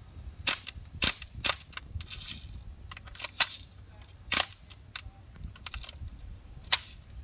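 CO2-powered BB guns firing: about a dozen sharp pops at irregular spacing, some in quick pairs, with a short hiss about two seconds in.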